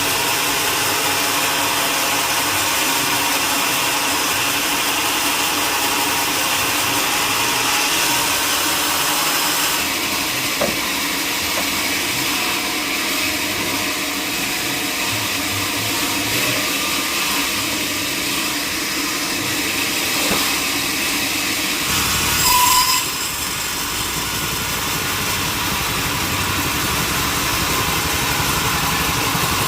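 Sawmill machinery running steadily. The sound changes character about ten seconds in, and a brief louder burst comes near the end.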